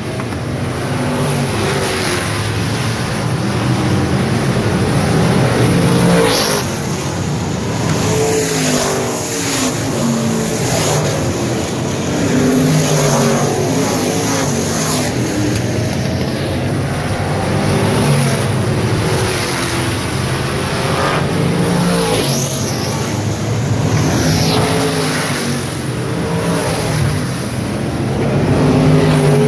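A field of street stock race cars' engines running hard in a race, the pitch rising and falling again and again as the cars accelerate out of the turns and pass by.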